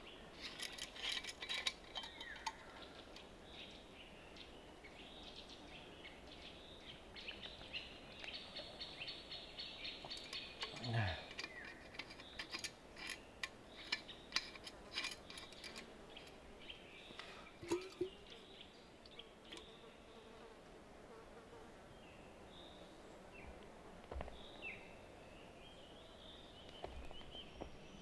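Scattered sharp clicks and knocks of hand tools working wood, busiest in the first two thirds, over a faint buzz of insects and a few bird chirps near the end.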